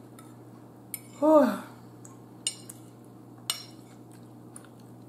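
A metal fork clinks and scrapes against a dinner plate several times. About a second in comes a short, falling "mmm" of enjoyment as she eats.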